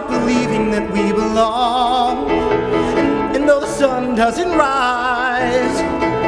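A man singing a musical-theatre song solo over instrumental accompaniment, with two held notes with vibrato, one about a second and a half in and one near five seconds.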